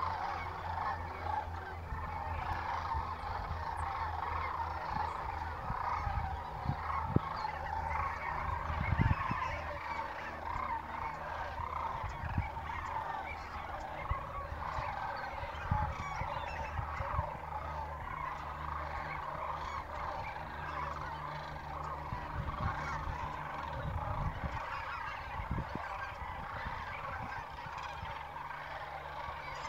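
A large flock of geese calling continuously: a dense chorus of many overlapping honks. A few low bumps on the microphone stand out, the loudest about seven and nine seconds in.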